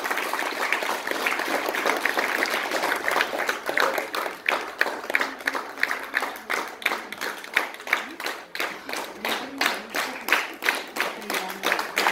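Audience applauding. In the second half the clapping thins out into fewer, separate claps.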